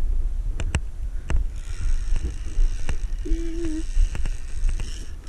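Steady low rumble of wind and handling on a worn action camera's microphone, broken by a few sharp clicks and knocks, with a short hummed voice sound about halfway through.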